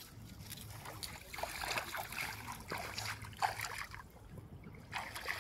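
Irregular splashing and sloshing of shallow river water, busiest in the middle, with a quieter spell and one more splash near the end.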